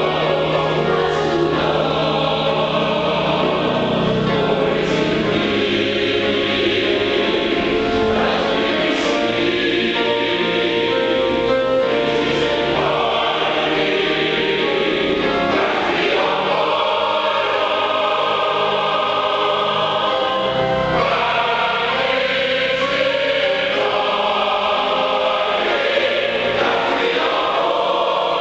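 Large mixed choir of men's and women's voices singing a slow sacred choral anthem, holding full sustained chords.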